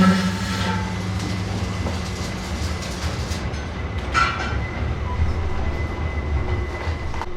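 Steady low mechanical rumble, with a short high squeak about four seconds in and a few brief knocks; the tail of background music fades out in the first second.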